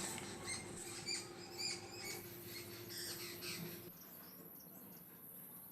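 Small birds chirping faintly in quick, short, high chirps, with a low steady hum under them that stops about four seconds in.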